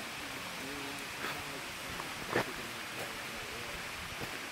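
Steady rush of a rain-fed waterfall pouring down a rock face, with faint distant voices and a short sharp knock about halfway through.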